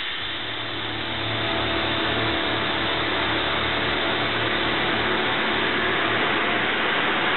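A steady, rushing, engine-like rumble effect from a promotional movie, played over hall loudspeakers, swelling slightly over the first couple of seconds and then holding.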